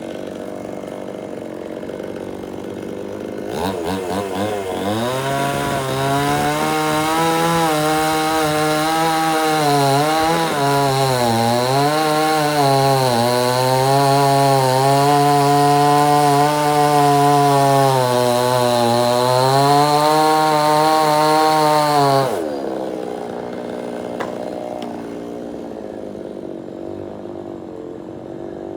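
Two-stroke chainsaw idling, then throttled up about four seconds in and run hard for nearly twenty seconds, its pitch wavering up and down under load as it cuts wood, before dropping back to idle.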